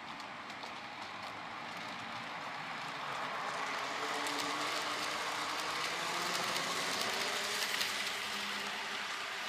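Dapol N gauge HST-P model train running past on the layout track. A steady whirring rumble from the motor and wheels grows louder as it approaches and is loudest about six to eight seconds in, with light clicks as the wheels cross the pointwork.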